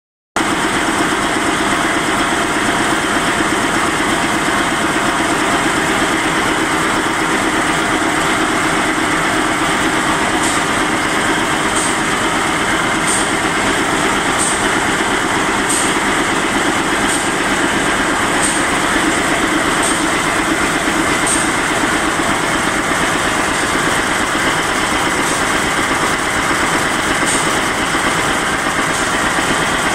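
Itema R9500 rapier weaving loom running at speed: a loud, steady, dense mechanical clatter, with faint high ticks about every second and a half through the middle.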